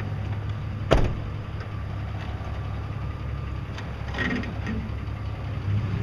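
Vehicle engine running steadily at a low idle while towing a magnetic sweeper forward, with one sharp knock about a second in.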